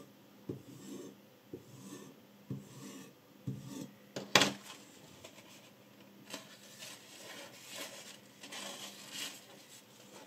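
A paper towel rubs and rustles along a kitchen knife blade clamped in a sharpening jig, wiping it. Before that come soft knocks about once a second and one sharp click a little over four seconds in.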